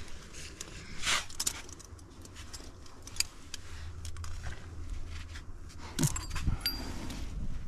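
Metal climbing gear (carabiners and protection racked on a harness) jangling and clinking in irregular taps over a steady low rumble.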